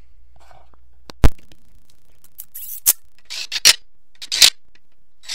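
One sharp, loud knock of a metal part or tool, then short scraping strokes about once a second as the sealing surface of the transmission's input bearing housing is cleaned before sealant goes on.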